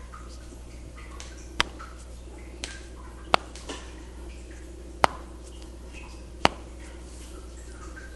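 Four sharp, separate snaps about a second and a half apart, with a couple of fainter ones between, from connective tissue over the spine being worked by hand in a myofascial release: the therapist takes them for the connective tissue releasing from the vertebrae.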